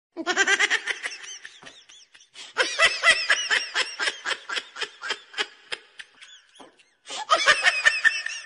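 High-pitched laughter in three bouts of quick, repeated giggles, with short gaps about two seconds in and near the end.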